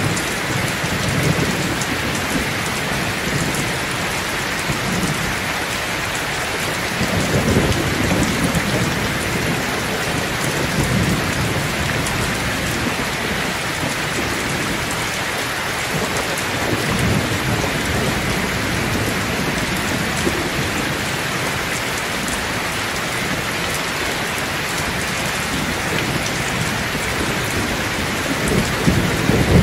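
Heavy rain falling steadily on waterlogged ground and foliage: a dense, even hiss, with a few low rumbling swells that rise and fade.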